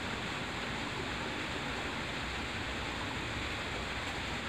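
Steady rushing background noise, even in level, with no distinct events.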